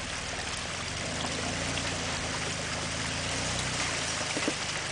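Jeep Wrangler engine running at low revs as it crawls over a rock step, with a steady rushing hiss underneath.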